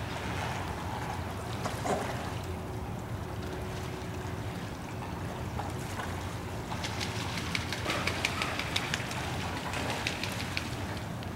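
Steady rush of choppy water at a sluice grating. In the second half comes a flurry of quick splashes as cormorants beat the surface with their wings while fishing as a group, a way of startling small fish into flight so they can be caught.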